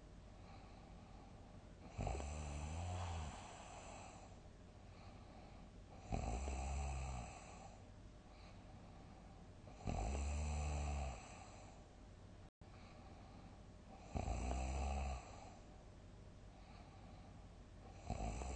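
A person in deep sleep giving big snores, one about every four seconds, each lasting about a second, with quieter breathing between.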